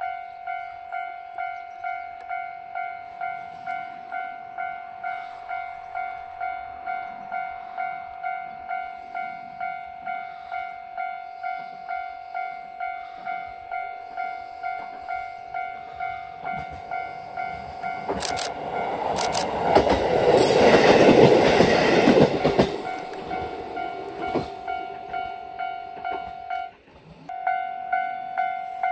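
KiHa 40 diesel railcar passing close by: its rumble swells to a peak with wheel clatter about two-thirds of the way through, then fades. Throughout, a steady ringing pulses about one and a half times a second behind it.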